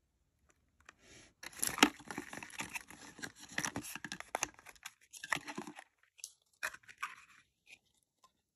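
Toy packaging being handled: clear plastic crinkling and rustling with sharp clicks, dense from about a second and a half in, thinning after about six seconds to a few scattered clicks.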